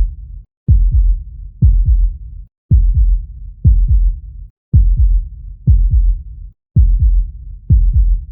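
A heartbeat: low double thuds, lub-dub, repeating steadily about once a second.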